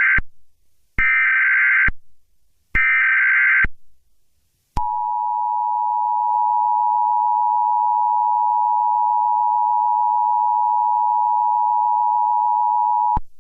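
Emergency Alert System header and attention signal. The tail of one SAME data burst and two more bursts of warbling digital screech, about a second each, are followed by the long steady attention tone. The tone holds for about eight seconds and cuts off sharply just before the end.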